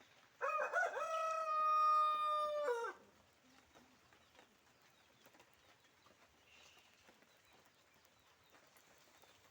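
A rooster crows once, a single call of about two and a half seconds that starts with a short rise, holds one steady pitch and drops away at the end.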